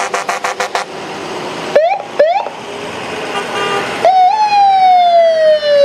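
Emergency vehicle electronic siren: a quick run of rapid pulses, then two short rising whoops, then a loud wail that climbs briefly and falls steadily in pitch.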